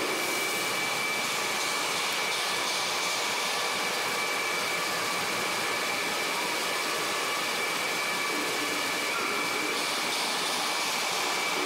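Steady machinery noise: a constant hiss and hum with a steady high-pitched whine running through it.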